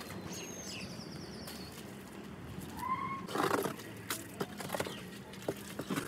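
A spade working wet clay mud in a pit, with several sharp knocks in the second half. A short animal call comes about halfway through, followed at once by the loudest, noisy burst.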